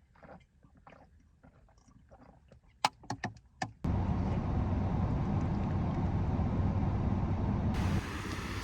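Faint handling sounds and a quick run of sharp clicks and knocks, then an abrupt switch to a steady low rumbling noise that fills the rest.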